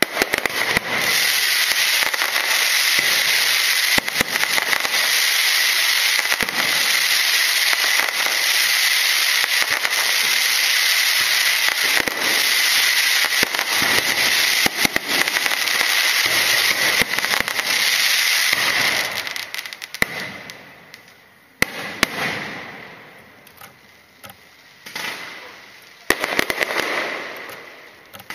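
Aerial fireworks show: a dense, continuous crackle of crackling-star shells bursting overhead for about nineteen seconds, then thinning to separate bangs that each fade out in crackle.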